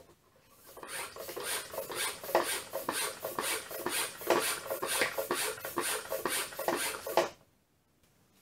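The hand pump of a garden pressure sprayer being worked in quick, even strokes, about three a second, each a rasping rub of the plunger. It is pressurising a home-made brake bleeder on a car's master cylinder reservoir. The strokes start about a second in and stop suddenly about a second before the end.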